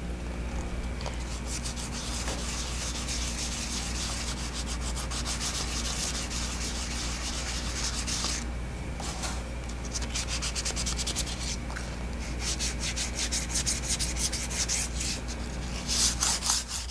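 Wet sandpaper rubbing by hand over a primed lathe casting in quick back-and-forth strokes, with a short pause about eight and a half seconds in and harder strokes near the end. A low steady hum runs underneath.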